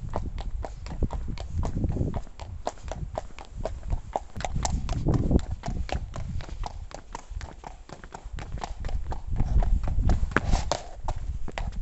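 A horse's hooves clip-clopping at a steady walk on an asphalt road, about four or five hoof strikes a second.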